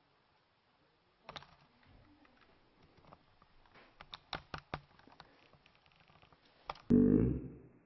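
A run of irregular sharp clicks and taps, several in quick succession, then near the end a brief loud pitched sound. The uploader presents that sound as a disembodied female voice saying "Better wash your hands".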